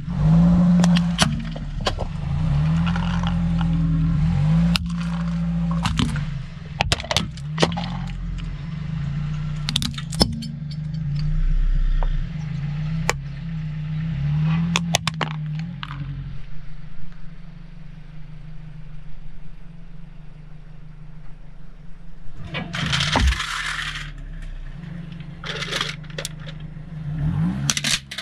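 Car tyre rolling over and crushing small plastic objects on asphalt: repeated sharp cracks and snaps of breaking plastic and crunching grit, over the low running of the car's engine, which drops back about halfway through. A burst of hiss about a second long comes near the end.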